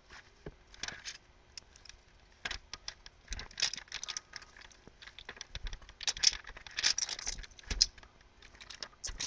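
Aluminium foil crinkling and rustling under raw chicken drumsticks as they are flipped and patted by hand, in short irregular bursts.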